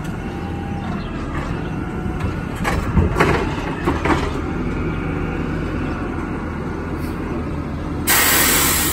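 CNG garbage truck's engine running steadily at low speed, with a few clunks and rattles from the truck about three seconds in. Near the end a loud air-brake hiss cuts in suddenly and slowly fades.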